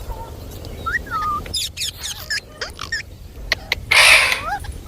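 Indian ringneck parakeet giving short chirps and whistled calls that glide up and down in pitch. About four seconds in comes a loud, harsh, noisy burst.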